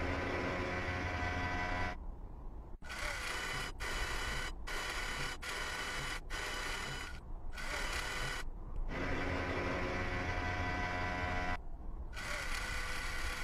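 Whirring electric-motor sound effects of a Mars rover's camera mast and robotic arm moving: a steady low hum under a higher whir that stops and restarts several times.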